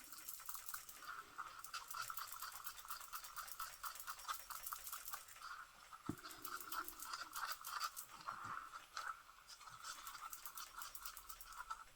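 Resin being stirred in a mixing cup: a faint, fast scraping of the stirrer against the cup, many strokes a second, with a pause or two, as pigment is mixed in to make the colour solid.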